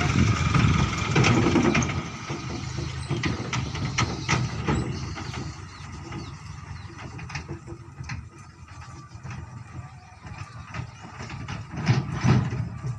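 Light dump truck's engine running as the loaded truck pulls past and drives away, loud at first and fading over several seconds, with scattered sharp knocks and rattles.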